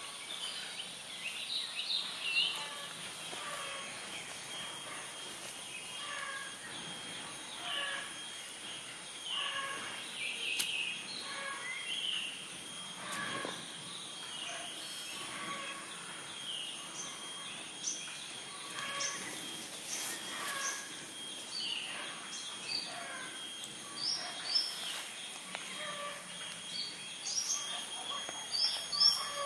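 Wild birds chirping with many short, repeated calls, over a steady high-pitched hiss or whine in the background.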